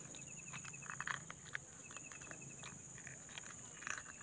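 Quiet outdoor ambience of insects: a steady high-pitched buzz, with two short runs of rapid chirping ticks in the first half and a few faint rustles and clicks.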